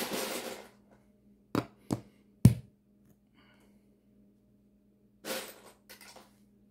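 Plastic Lego pieces handled and pressed onto a baseplate laid on plywood: a brief rustle, then three sharp knocks in quick succession, the last a loud deep thunk, and another rustle of handling near the end.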